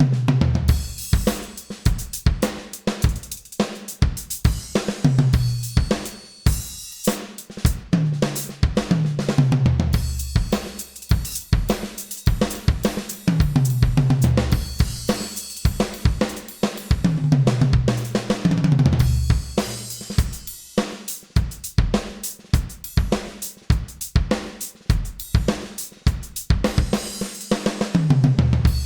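Drum solo on a Millennium MPS1000 electronic drum kit with miked low-volume cymbals: fast snare, kick and hi-hat patterns with cymbal wash, broken by about half a dozen tom fills that step down in pitch from the high toms to the floor tom.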